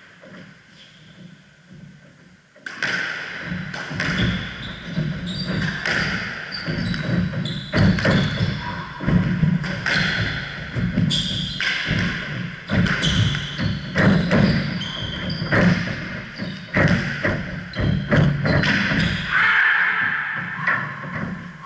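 A squash rally: the ball smacking off the walls and rackets in quick succession, with sports shoes squeaking on the wooden court floor. It starts suddenly about two and a half seconds in and runs on with many knocks close together.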